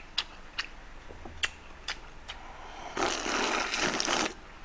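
Mouth sounds of eating cold noodle soup: a few small wet clicks of chewing, then about three seconds in a long noisy slurp of icy broth and noodles drunk straight from the bowl.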